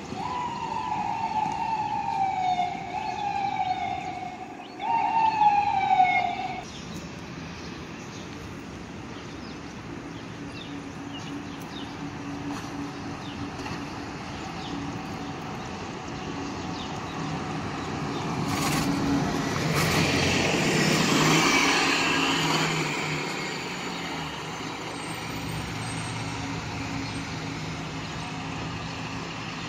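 Emergency vehicle siren: three falling sweeps in a row, each jumping up and sliding down, the last one cutting off about six and a half seconds in. Afterwards city bus and traffic engines run steadily, with a louder vehicle pass around twenty seconds in.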